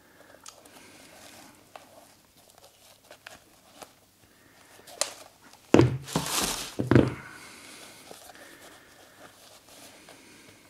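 Tissue paper rustling in a cardboard shoebox as a sneaker is pulled out, with two thumps of the shoe against the box about a second apart, halfway through. Soft handling clicks otherwise.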